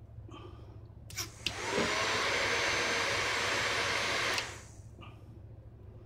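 Formula hair dryer, opened up, switched on in a test run: a click or two, then its fan motor spins up with a rising whine and runs with a steady rush of air for about three seconds before it is switched off. It runs, showing that power reaches the motor and the switch works.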